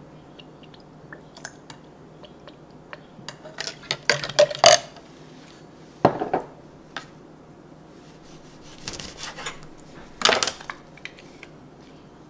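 Kitchen utensils and containers being handled at a jar on the counter: a spoon and bottle clicking and knocking against the jar and countertop. The loudest knocks come in a quick cluster about four seconds in, a single sharp knock follows at about six seconds, and another cluster at nine to ten seconds.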